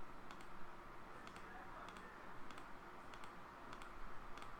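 Computer mouse clicking repeatedly: a series of light, sharp clicks roughly every half second, some in quick pairs.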